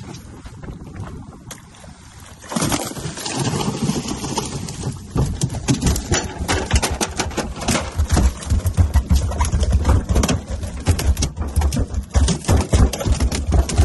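A freshly landed tuna thrashing on a boat deck, its tail beating fast against the deck in a dense run of knocks over a low rumble. The knocking gets going about five seconds in and carries on to the end.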